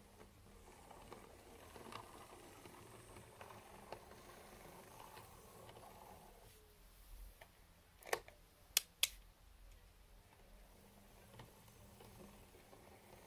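Motor and gears of a Hornby 0-4-0 OO gauge model locomotive chassis running as the shunter pulls away, a faint whir that fades out about six seconds in. A little after eight seconds come three sharp clicks, the loudest sounds.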